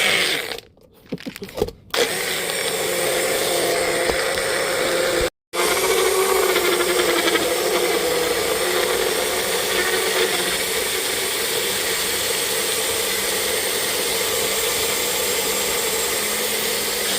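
Electric blender running steadily at high speed, blending fruit into juice, with short breaks in the first couple of seconds and another about five seconds in.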